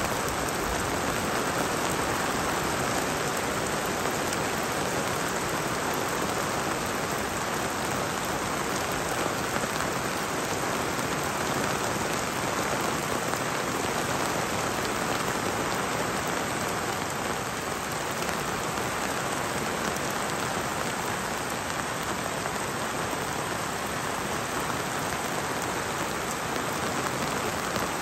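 Steady thunderstorm rain falling, an even hiss that holds the same level throughout.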